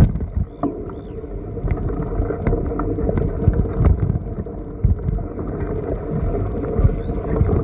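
Pedicab rattling and rumbling as it rolls over rough, grassy ground, with scattered knocks and clatter and a sharp knock right at the start.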